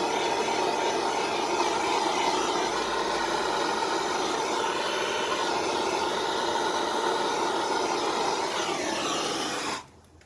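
Handheld gas torch flame hissing steadily while heating a pipe joint for soldering, shutting off suddenly near the end.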